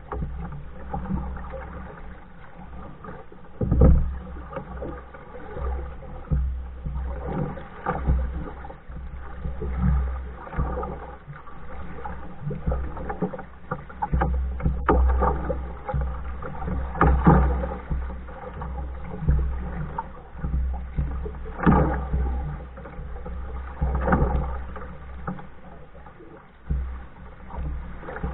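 Canoe paddle strokes dipping and pulling through the water at an even pace, about one every two seconds, from a solo paddler in a Hornbeck New Trick canoe, over a low steady rumble.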